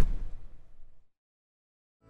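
A single loud low boom that dies away over about a second, followed by silence.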